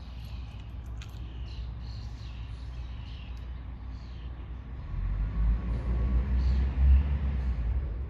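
Small birds chirping, then about five seconds in a passing car's low rumble swells up and fades again near the end.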